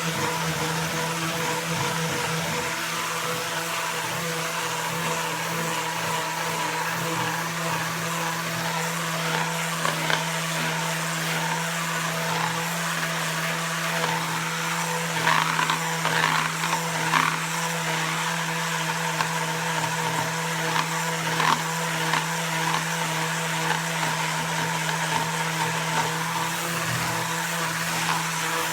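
Power sander running steadily, sanding down hardened Bondo body filler over a welded patch on a steel safe, with a constant motor hum and hiss. About halfway through come a few sharper, louder scratchy bursts.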